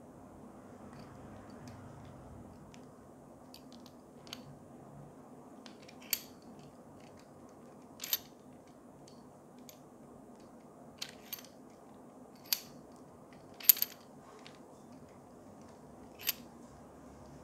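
Sharp, scattered clicks and clacks from a metal super clamp as it is handled and fitted onto the threaded end of an articulating magic arm. There are about eight clicks a second or two apart, the loudest a little over halfway through, over a steady low hiss.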